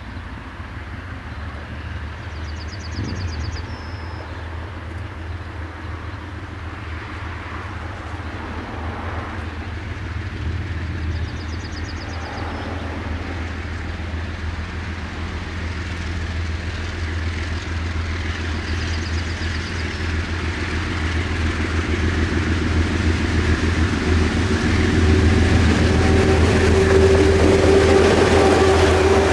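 Two KiwiRail DXB-class diesel-electric locomotives at the head of a milk tanker freight train approach. Their low engine drone grows steadily louder until they pass close by near the end.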